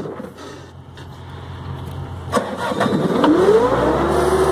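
Bobcat skid-steer loader's diesel engine being started: a couple of clicks about two and a half seconds in, then the engine catches, its pitch rising quickly before settling into a steady run near the end.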